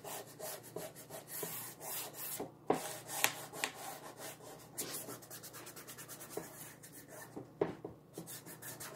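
Hands rubbing and smoothing an adhesive silkscreen transfer down onto a magnetic chalkboard surface to press out lumps and bumps: a run of short, irregular rubbing strokes with a few louder swipes.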